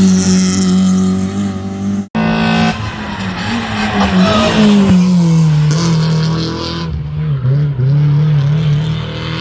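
Rally car engines running hard at high revs. The engine holds one pitch, then after a cut about two seconds in a car's engine pitch drops, as when it lifts off or goes past, and then wavers as it works through the stage.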